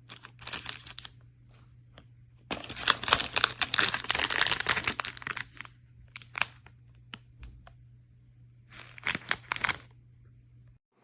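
Plastic packaging crinkling and tearing in irregular spells as a replacement phone battery kit is unpacked: a short spell at the start, a longer one of about three seconds, a few scattered clicks, then another short spell near the end, over a steady low hum.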